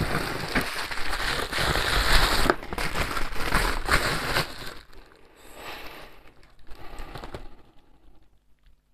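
Crinkling and rustling of wrapping as a small object is unwrapped by hand, with many small crackles. It is loudest for the first four and a half seconds, then grows fainter and stops about seven and a half seconds in.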